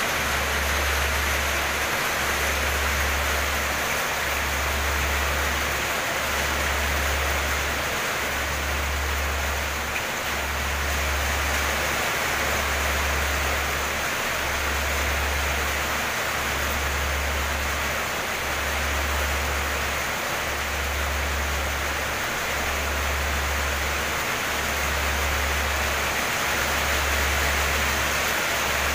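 Very heavy tropical rain pouring steadily onto trees, banana leaves and the ground, a dense even hiss. Beneath it runs a low hum that drops out briefly about every two seconds.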